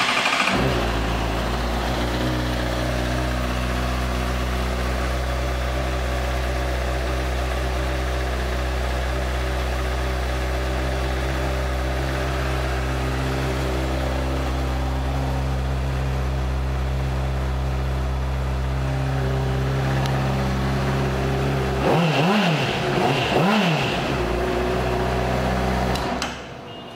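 2014 Honda CBR600RR's inline-four engine just started and idling steadily. It is blipped twice, about a second apart, some 22 seconds in, with the revs rising and falling quickly each time, then switched off near the end.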